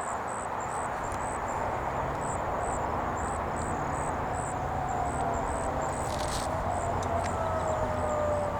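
Distant Federal Signal 2001-series tornado sirens sounding in a monthly test, heard as a steady wash of sound; about halfway through, one siren's tone starts falling slowly in pitch as it winds down. A low hum and a high chirping pulse run underneath.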